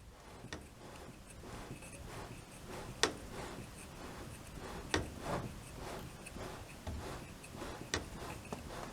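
Hitachi DE-N35FY clothes dryer running: a low hum that builds over the first couple of seconds, with irregular clicks and knocks on top, the sharpest about three, five and eight seconds in.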